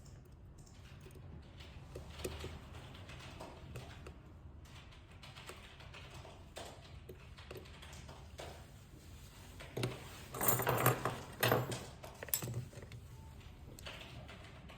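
Small clicks and taps of tools and phone parts being handled on a workbench during a smartphone repair, with a run of louder clicks about ten seconds in.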